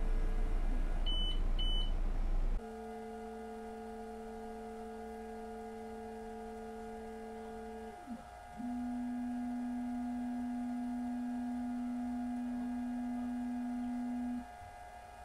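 Two short high beeps, then the Elegoo Mars 5 Ultra resin printer's stepper motor whining steadily as it drives the build plate down into the resin vat. The whine dips and changes pitch about eight seconds in, runs on louder, and stops shortly before the end.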